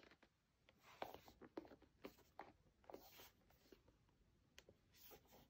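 Faint rustling and scraping as hands handle a cardboard gift box tied with a satin ribbon, in a series of short scratchy strokes.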